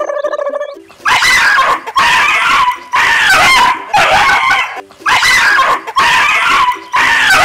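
A dog barking loudly and repeatedly, about one drawn-out bark a second, starting about a second in. Before the barks there is a short steady pitched tone.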